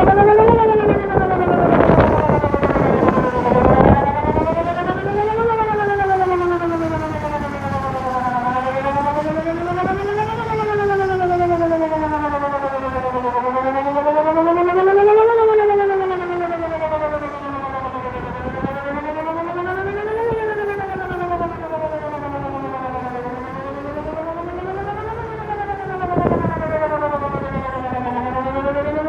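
Whelen WPS 2910 electronic outdoor warning siren sounding its wail tone: a pitched tone that slowly rises and falls, about one cycle every five seconds, during a monthly siren test.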